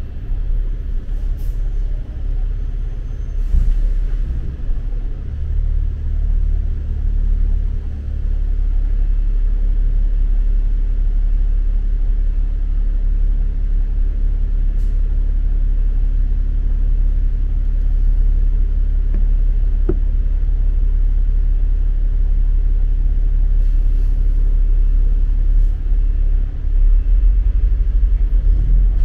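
Steady low rumble of motor-vehicle traffic, with one short click about twenty seconds in.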